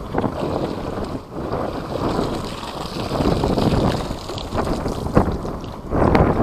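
Strong gusting wind buffeting the microphone: an uneven low rumble that swells and eases.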